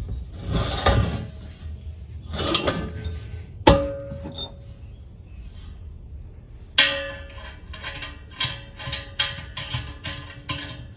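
Background music with a quick, evenly repeating percussive beat from about two-thirds in. Earlier come two short rushing swells and one sharp knock with a brief ring about a third of the way in.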